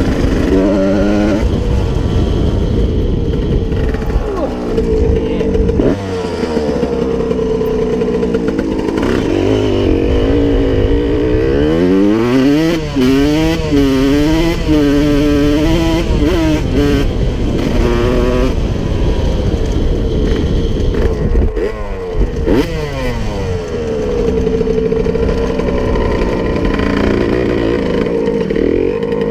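1992 Honda CR125's 125 cc two-stroke single-cylinder engine running as the dirt bike is ridden, its revs rising and falling with the throttle and wavering up and down several times in the middle.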